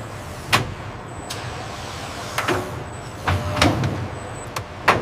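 Factory assembly machinery: a series of sharp mechanical clicks and knocks, about six in five seconds, over a steady hum with a faint high whine.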